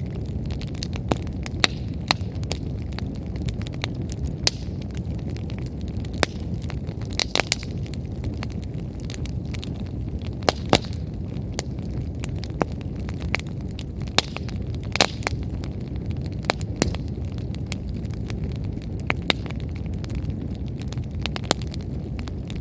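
A wood fire burning: a steady low rush of flames with irregular crackles and sharp pops of burning firewood, a few pops standing out louder.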